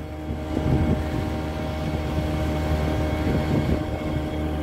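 Fishing boat's engine running steadily under way, a continuous low drone with a steady hum.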